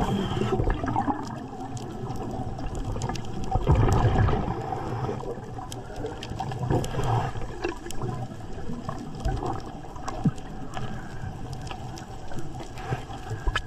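Underwater bubbling and gurgling of a diver's breathing, with surges of exhaled air.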